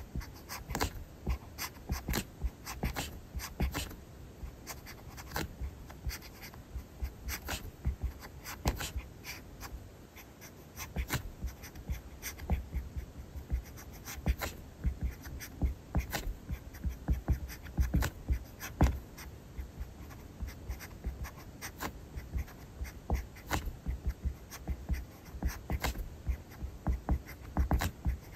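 Pen writing on paper close to the microphone: quick, irregular scratching strokes and small taps as characters are written.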